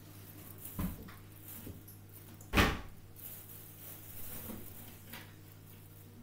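Two sharp knocks, one about a second in and a louder one about two and a half seconds in, with a faint tap later, over a low steady hum.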